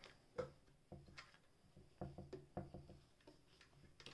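Faint, irregular clicks and light knocks as fabric is handled and set under the presser foot of a Singer 467 sewing machine, before the machine is run.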